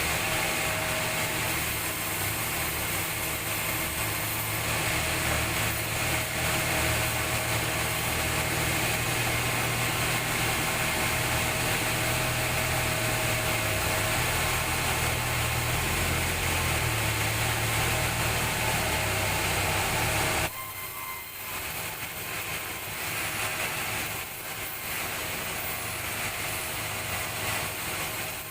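Sawmill saw running, cutting through a log: a loud, steady machine noise with a low hum. About twenty seconds in it drops suddenly to a quieter, uneven machine noise.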